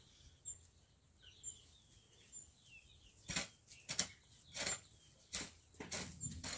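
Footsteps on a dirt path, starting about three seconds in and falling about three every two seconds. Faint bird chirps come before them.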